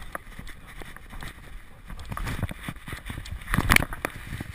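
Handling noise from a GoPro HD Hero2 strapped to a walking dog: irregular knocks and scrapes from the camera housing and its mount, with the dog's fur brushing against it. A louder rubbing burst comes about three and a half seconds in.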